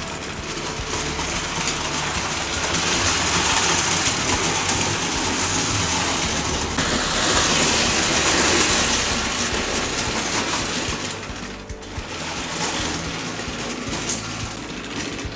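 Fleischmann gauge 0 model trains running on metal track, with a continuous rattle of wheels that grows louder twice as trains pass close, and a short dip about three-quarters of the way through. Background music plays underneath.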